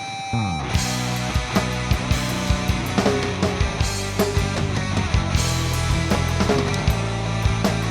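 Instrumental rock band playing: guitar over bass and a steady drum beat. The music drops out briefly right at the start, then the full band comes back in.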